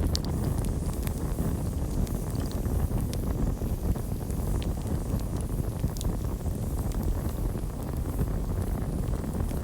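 Campfire burning with a steady low rumble and scattered sharp crackles and pops of burning wood.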